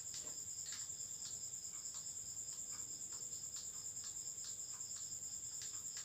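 Faint, steady, high-pitched pulsing insect trill, with a few soft clicks scattered through it.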